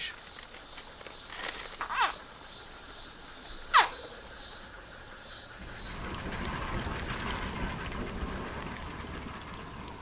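Caiman hatchlings calling: two short chirps that slide sharply downward in pitch, a faint one about two seconds in and a louder one near four seconds. They sit over steady outdoor wetland ambience that grows slightly louder after about six seconds.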